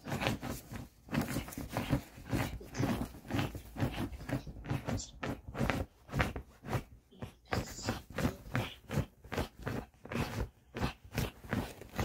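A Pomeranian rooting at the bedding: quick, irregular scratchy rustles of quilt and blanket fabric, several a second.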